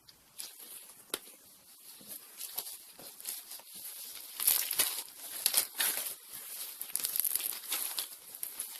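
Fluffy slime being squished and worked, giving a run of irregular crackles and small pops that grows louder and busier from about halfway through.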